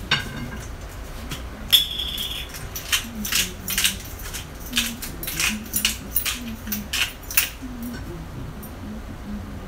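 Hand-twisted spice grinder worked over a frying pan: a quick series of short gritty grinding bursts, two or three a second, for several seconds. Just before, a single ringing clink.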